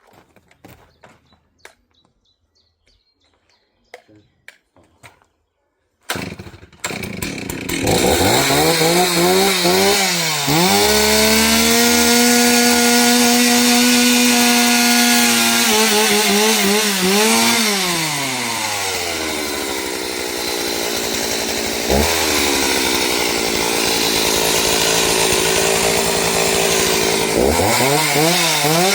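Two-stroke chainsaw pull-started about six seconds in, then running at high revs, its pitch dropping and rising several times as it cuts into wood.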